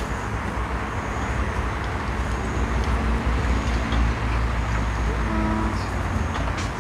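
Steady low outdoor rumble, with a sharp click right at the start.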